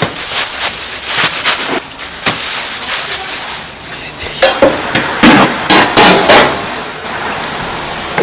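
Restaurant kitchen clatter: a string of sharp knocks and clacks of utensils and dishes, loudest and most frequent about five to six and a half seconds in.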